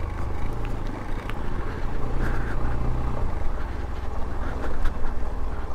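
Hero XPulse 200 4V motorcycle's single-cylinder engine running steadily while the bike is ridden.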